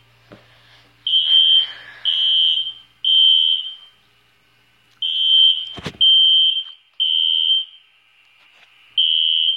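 SpectrAlert Classic fire alarm horn sounding in the temporal code-3 pattern: three short, high-pitched beeps, then a pause, repeating. A single sharp knock comes about six seconds in.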